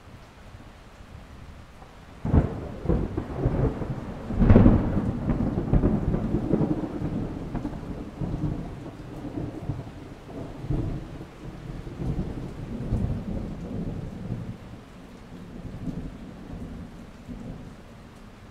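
Thunderstorm with steady rain: a thunderclap cracks about two seconds in, a louder one follows a couple of seconds later, and the thunder then rumbles on, slowly fading under the rain.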